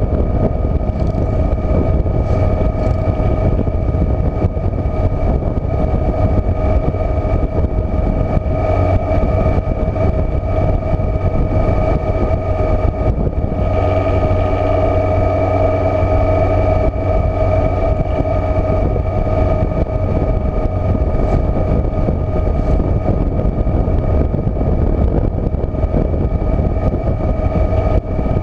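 Touring motorcycle cruising at steady road speed: the engine runs under constant wind and road noise, with a steady whine that grows stronger for a few seconds about halfway through.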